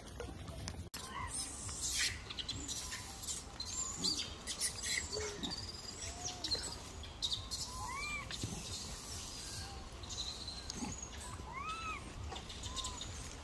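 Scattered short chirping calls, each rising then falling in pitch, some thin and high, among clicks and light rustling.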